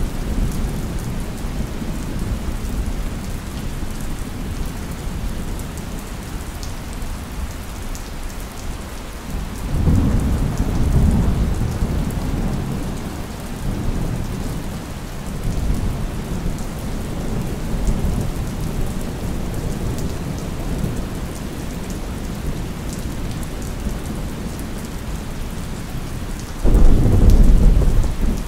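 Steady rain falling, with rolling thunder: a low rumble swells about ten seconds in and rolls on for several seconds, and a sudden, louder thunderclap comes near the end.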